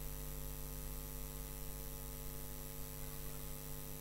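Steady electrical mains hum with a faint hiss, the kind a microphone and PA system pick up, filling a pause in the speech.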